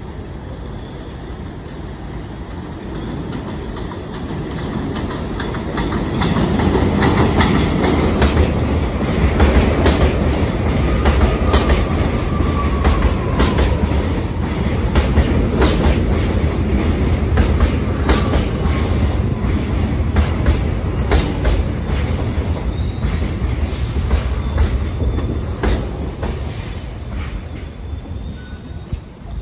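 An R68 subway train pulls into an elevated station. Its rumble builds as it comes in, with rapid clacks of the wheels over the rail joints and a falling wheel squeal partway through. The noise eases off as it slows to a stop, with a brief high squeal near the end.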